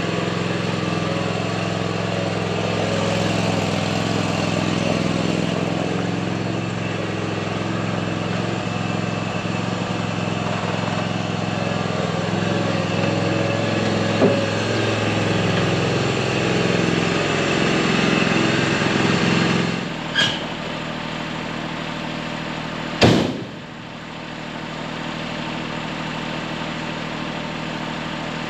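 A vehicle engine running steadily. About two-thirds of the way through the hum drops off abruptly with a click, and a few seconds later comes a single sharp knock, the loudest sound, followed by a lower, quieter steady noise.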